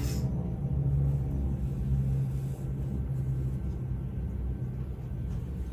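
Low, steady drone of propeller aircraft engines.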